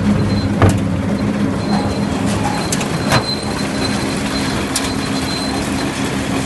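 New Holland 835 round baler running steadily off a tractor's PTO with a constant mechanical hum, with two sharp knocks about half a second in and about three seconds in.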